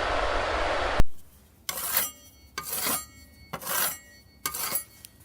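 Metal being scraped in four separate strokes, each with a faint metallic ring. Before them, a steady hiss-like noise cuts off with a sharp click about a second in.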